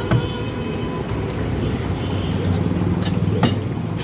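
Steady street traffic rumble, with a vehicle engine growing louder for about a second past the middle. A few sharp clicks sound over it: one near the start and two close together about three seconds in.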